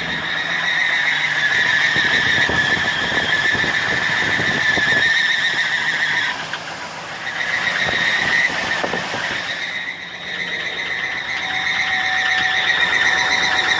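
2004 Chevrolet Silverado engine running with a steady, high-pitched squeal and a rapid knocking, the sound the owner presents as rod knock. The engine's level dips briefly twice, about six and a half and ten seconds in.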